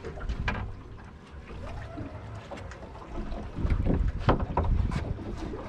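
Wind buffeting the microphone over water lapping against a drifting boat's hull, with a few short knocks; the loudest gusts come about four seconds in.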